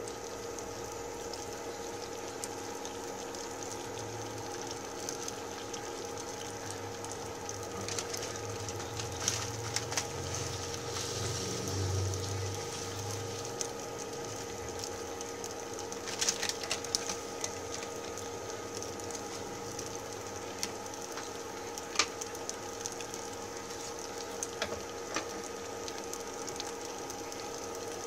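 Breaded cheese stick deep-frying in a pot of hot oil: steady sizzling and bubbling with scattered sharp crackles and pops, the sharpest about 22 seconds in, over a steady hum.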